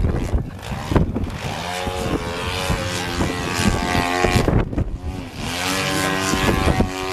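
Engine and propeller of a 2.2 m Yak-54 radio-controlled aerobatic model airplane in flight. Its note rises and falls repeatedly as the throttle changes through the manoeuvres.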